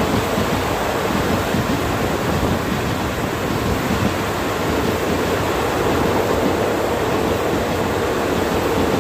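Express passenger train coaches running past at speed in heavy rain: the rumble of wheels on rails blends with pouring rain into one steady, dense noise.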